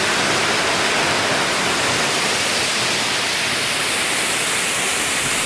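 Waterfall: a steady rushing of falling water.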